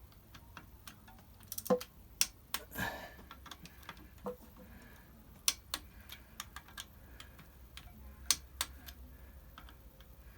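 Torque wrench ratcheting and clicking in scattered sharp clicks as bolts are tightened in a star pattern, each click marking a bolt reaching the 8 Nm setting.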